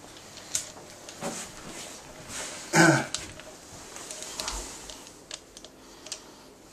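Plastic clicks and taps of hands working an umbrella holder's clamp and screw knob onto a golf trolley handle, with one louder, short handling noise about three seconds in.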